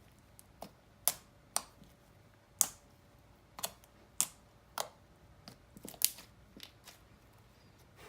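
Glossy chalkboard-paint slime being squeezed and stretched, making about a dozen sharp clicks and pops at uneven intervals.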